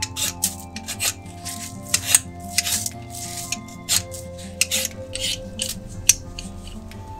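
A hand-held Y-peeler scraping the skin off a potato in quick strokes, about two a second, over background music.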